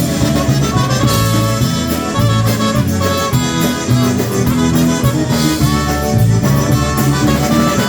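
Live polka band playing an instrumental passage, accordion carrying the melody over a steady bass and drum beat.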